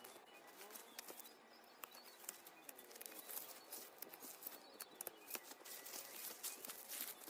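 Soft, irregular clicking and tapping, typical of typing on keys fitted with AKKO Fairy silent linear mechanical switches, which are damped and quiet.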